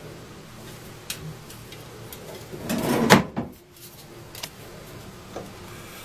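Clicks and a scrape at a sink as the tap is being turned on: a few light clicks, then about three seconds in a louder scraping clunk.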